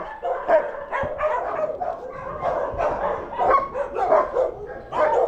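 Many shelter dogs barking and yipping at once, an unbroken jumble of overlapping barks.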